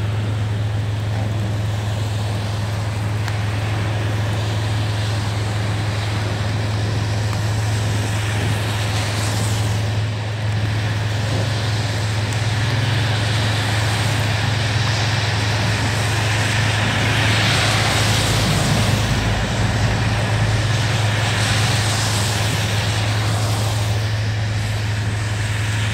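Cars passing on a flooded, rain-soaked road, their tyres hissing through standing water in several swells, loudest about two-thirds through. A steady low hum runs underneath.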